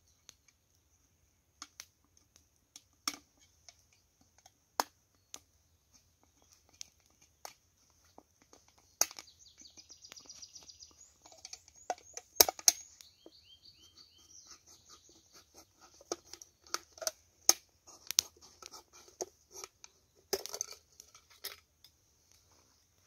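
Scattered clicks and crackles from handling things beside a small twig fire. Around the middle an aluminium drink can is opened, a sharp crack followed by a short fizz, with the loudest snap just after it.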